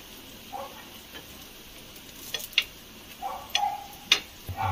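A few sharp metal clicks of a spoon against an appe pan as roasted litti are turned and lifted out, over a faint sizzle of ghee.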